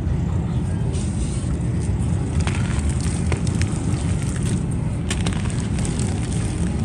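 Crisp snapping and crackling of a brittle, crumbly material being broken apart for ASMR, with scattered sharp snaps clustered in the middle, over a steady low rumble.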